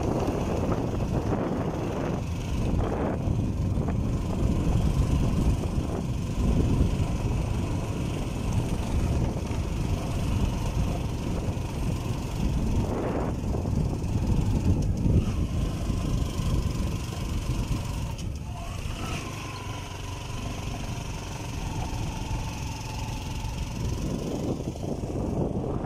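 Motorcycle running at riding speed, with steady road and wind rumble on the microphone.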